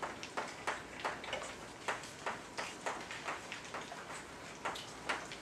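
Chalk writing on a blackboard: a quick, irregular run of sharp taps and short strokes, about three a second.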